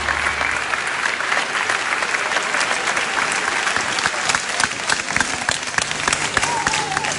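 Studio audience applauding hard, a dense patter of many hands clapping. The dance music's bass dies away about half a second in.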